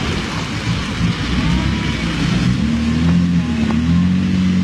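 Toyota Hilux pickup's engine labouring through deep mud, its pitch rising and falling with the throttle and getting louder after a couple of seconds, over the slosh of churned mud and water.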